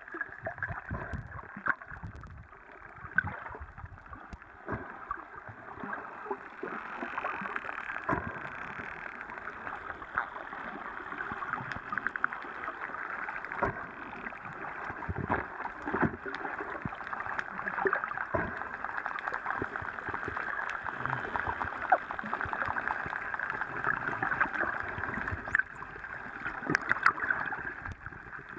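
A pod of dolphins heard underwater: dense, rapid clicking and crackling chatter, with many sharp clicks standing out, heard through an underwater camera's housing.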